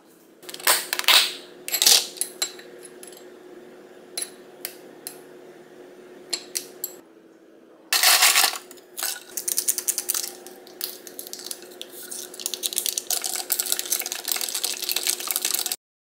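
Dishes clinking as they are set down on a stone countertop, then ice cubes scooped from a plastic ice bin and dropped into a glass mug with a rattle and clinks. Near the end a dense crackle of ice as a drink is poured over it, cut off suddenly.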